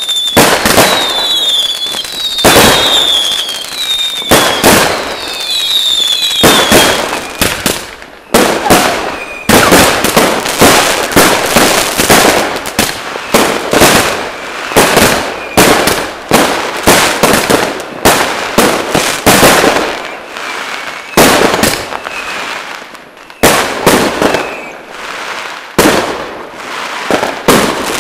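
New Year's Eve fireworks going off in a dense, unbroken run of loud bangs and firecracker pops, with short high whistles over the first several seconds.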